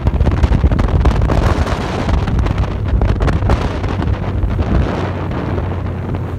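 Heavy wind buffeting on the microphone as a bass boat runs under outboard power, with the engine's low rumble underneath.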